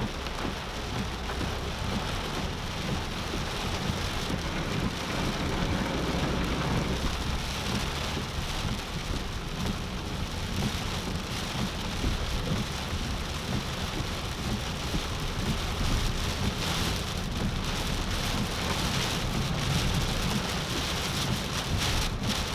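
Heavy rain falling steadily on a moving car, with a low road rumble underneath.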